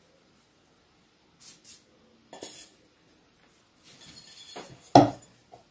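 Flour being scattered by hand onto wax paper over a wooden board: a few soft, brief brushing rustles, then a single sharp knock near the end as a small stainless steel bowl is set down on the board.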